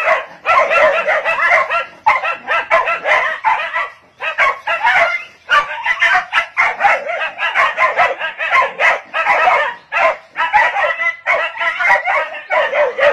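Two dogs barking rapidly and almost without pause, the barks overlapping, in a frenzied confrontation with a monkey.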